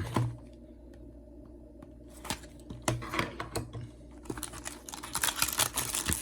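Foil trading-card booster pack being handled: scattered clicks and crinkles, sparse at first and growing busier over the last two seconds as the pack is worked open.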